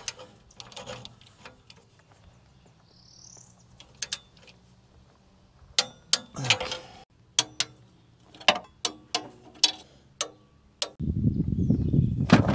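About a dozen irregular sharp clicks and clanks of hand tools on metal, with a short rising bird chirp about three seconds in. Near the end a steady low rumble sets in.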